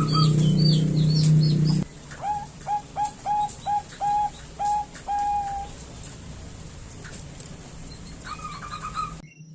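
Female zebra dove (Bangkok perkutut) cooing: a run of about eight short, clipped notes between two and five and a half seconds in, and another brief run near the end, a call played to draw males to answer. The first two seconds are dominated by a loud low hum with thin high chirps over it, and the sound cuts off abruptly just before the end.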